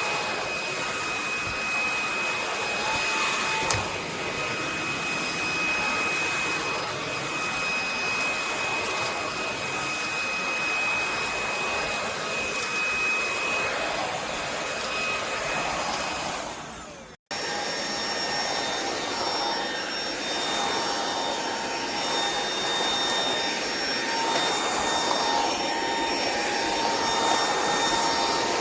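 EUREKA RapidClean Pro cordless stick vacuum running steadily, a motor whine over an airflow rush. It fades and drops out for a moment about seventeen seconds in, then comes back with a changed whine.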